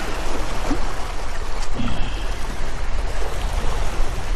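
Waves washing and splashing against jetty rocks: a steady rush of moving water with a low rumble beneath it.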